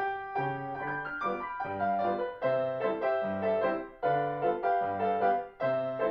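Background piano music: a tune of short notes over a steadily repeating bass pattern.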